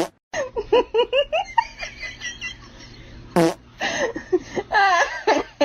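A high-pitched voice in a quick run of short pitched bursts, like giggling, with more voice near the end.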